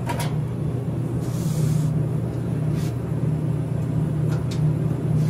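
Open soda vending machine running with a steady low hum, with a few light clicks and knocks as aluminium cans are handled in the column.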